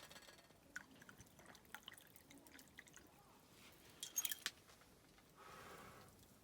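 Quiet clinks of a bottle and cup, with a cluster of sharp clinks about four seconds in, then a short soft pour of liquid into the cup near the end as a drink is mixed with hot water.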